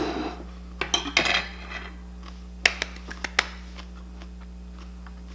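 Metal knife and fork clinking and tapping against a ceramic plate: a handful of sharp clicks in the first three and a half seconds.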